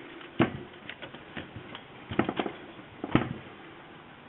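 Sharp clicks and knocks from a Byron portable typewriter being handled: one about half a second in, a short run of them around two seconds, and another just after three seconds.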